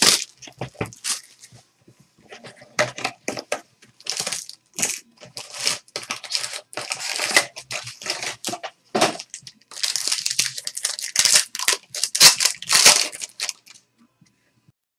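Plastic wrap and a foil trading-card pack being torn open and crinkled, in quick irregular bursts of crackling and rustling that stop about a second before the end.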